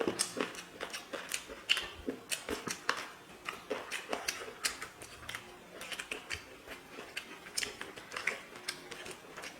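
Eating sounds from chicken biryani being eaten: chewing, lip-smacking and mouth clicks, coming as many irregular short clicks, several a second.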